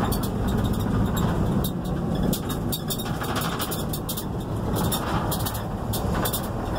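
Steady road noise heard inside a moving vehicle's cabin: engine and tyre rumble while driving.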